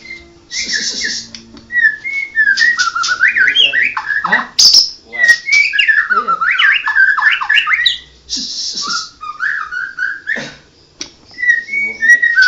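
White-rumped shama of the Medan type singing: fast, varied whistled phrases of rapid up-and-down notes, broken twice by a short harsh hissing rasp.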